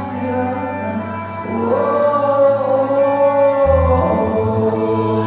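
A live band and a singer performing a pop-rock song. The singer holds one long note over the guitar and band, and a deeper bass note comes in a little before the end.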